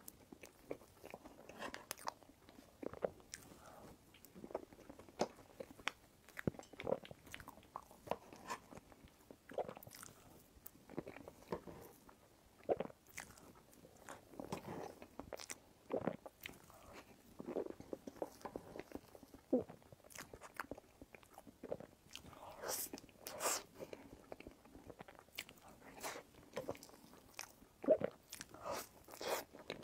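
Eating sounds close to a clip-on microphone: soft, wet chewing and lip smacks with irregular small clicks as a green cream dessert is eaten by the spoonful.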